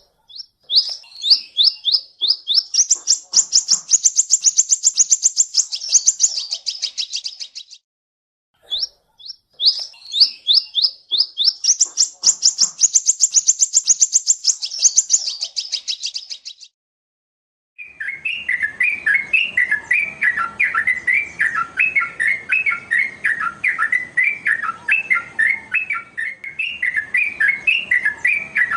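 Recorded songbird song: two long, fast, high trills of about eight seconds each, each cut off by a dead-silent gap. Then, from a different recording, a continuous lower, chattering warble runs over faint background hiss.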